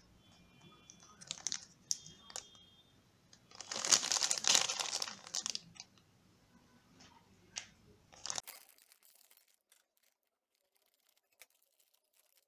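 Foil-lined plastic candy pouch crinkling as it is handled and turned over, with the loudest stretch of crackling and tearing about four seconds in as the bag is ripped open. After about eight seconds only a few faint ticks remain.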